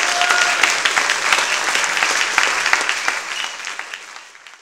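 Audience applauding, a dense patter of many hands clapping that fades out over the last second and a half.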